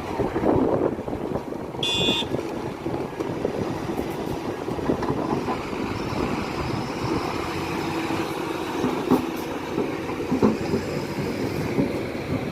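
Heavy diesel machinery, an excavator loading a tipper truck, running steadily. A brief high beep sounds about two seconds in, and a few knocks come near the end.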